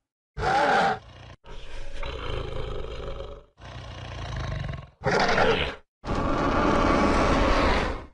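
Monster roar and growl sound effects for an animated creature, in five separate calls cut apart by brief dead silences. Short, loud roars come about half a second in and about five seconds in, with longer, rougher calls between them and near the end.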